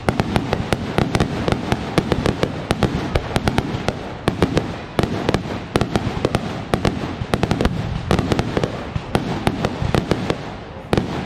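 Fireworks display: a dense, rapid run of sharp bangs and crackling reports, several each second, over a continuous low rumble of aerial shell bursts.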